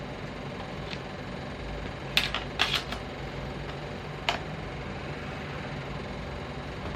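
A few sharp clicks and taps of things being handled during the unboxing: a faint one about a second in, a quick cluster a little after two seconds, and one more past four seconds, over a steady low hum.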